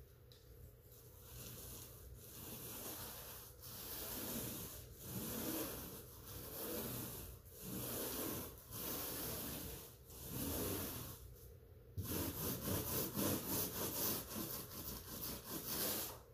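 Paint roller being rolled up and down a wall, a soft rubbing swish with each stroke, roughly one stroke a second. From about twelve seconds in the strokes come quicker and closer together.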